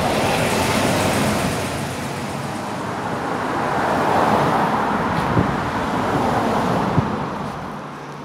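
Road traffic passing beneath the railway bridge: a steady rush of car tyres and engines that swells twice and fades away near the end, with a couple of short sharp knocks late on.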